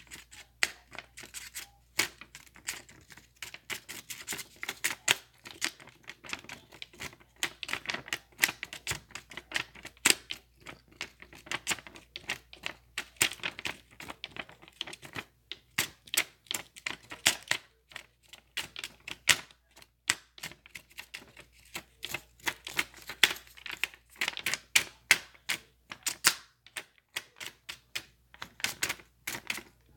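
Typing on a computer keyboard: a fast, irregular run of key clicks, with a brief pause near the end.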